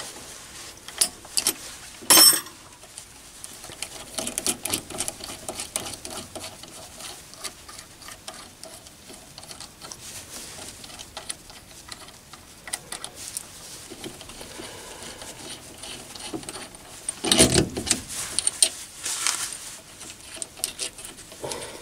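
Light metal clicking of a ratcheting spanner undoing a nut, then clinks of steel nuts, washers and a base plate being handled and lifted off a steel pallet. There is a sharp knock about two seconds in and a louder metal clatter near the end.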